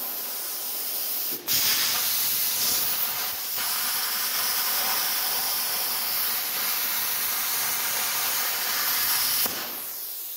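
Bestarc CUT55XP plasma cutter cutting steel plate. A hiss of air from the torch gives way, about a second and a half in, to the louder steady hiss of the arc cutting for about eight seconds, which stops near the end and leaves a quieter hiss.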